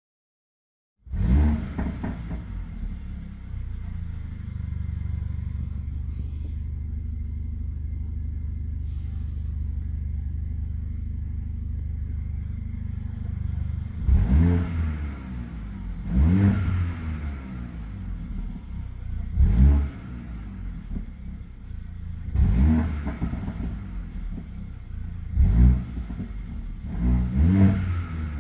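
Mercedes-AMG CLA 45's 2.0-litre turbocharged four-cylinder (M133) starting up through the AMG performance exhaust, flaring loudly and settling into a steady idle. About halfway through it is blipped sharply about six times, each rev rising and falling back quickly with crackles and pops on the overrun.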